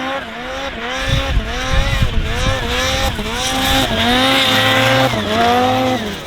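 Two-stroke snowmobile engine revving hard, its pitch surging up and down again and again under the throttle, with low thumps about a second in. The engine note cuts off suddenly near the end.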